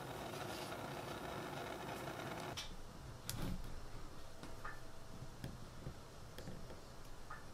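A steady mechanical hum that cuts off suddenly about two and a half seconds in. After it come scattered light clicks and taps as wax sprue rods and a wax wheel pattern are handled on a workbench.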